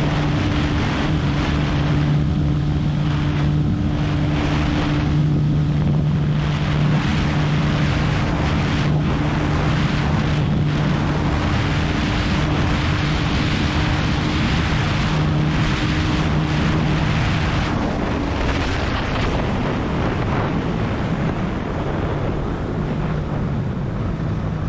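Bajaj Pulsar NS200's single-cylinder engine held at high revs near top speed, a steady note under heavy wind noise on the microphone. About 18 seconds in the engine note fades as the throttle is closed and the bike slows, leaving mostly wind.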